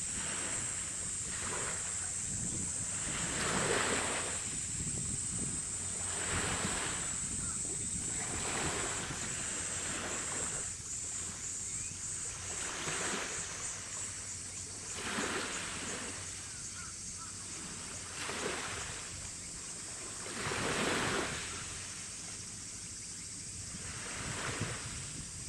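Choppy harbour water splashing in swells every few seconds, with wind and a steady high-pitched hiss underneath.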